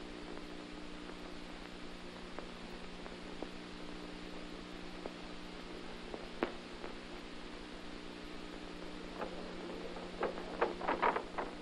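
Steady low electrical hum under a bed of hiss, with a sharp click about six seconds in and a quick run of clicks and crackles near the end.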